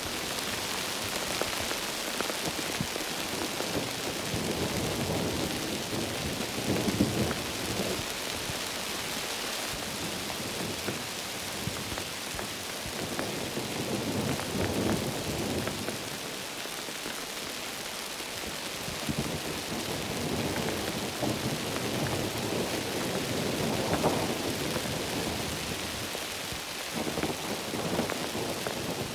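Heavy rain falling steadily in a dense hiss, with low rumbles of thunder swelling and fading now and then.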